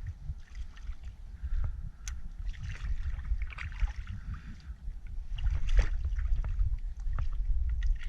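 Water sloshing and splashing around the camera, with a steady low rumble and scattered clicks and hissy splashes.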